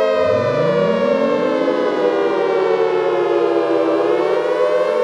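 Civil defense warning sirens sounding together. One holds a steady tone while another winds up from a low pitch, rising over the first couple of seconds to join it.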